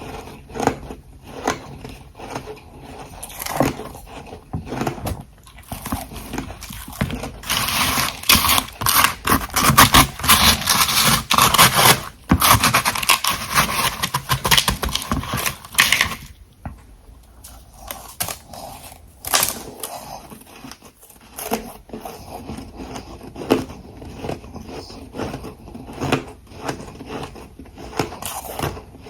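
A person biting and chewing ice in the mouth, with irregular crunches throughout. A loud stretch of rapid, dense crunching comes about a third of the way in and stops abruptly just past halfway.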